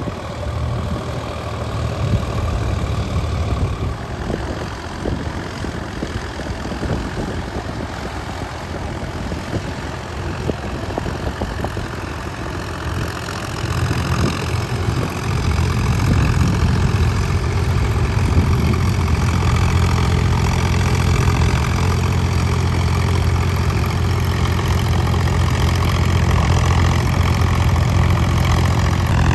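Tractor's diesel engine running steadily, growing louder about halfway through and then holding at a steady pitch.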